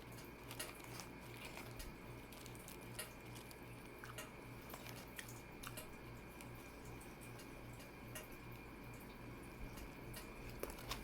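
Quiet, wet chewing of a meatball marinara sub, with scattered small mouth clicks and squishes, over a steady low hum.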